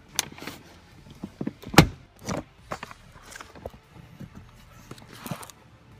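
Scattered knocks and clicks of a car seat being pulled loose, with one loud thump about two seconds in and a brief rustle about five seconds in.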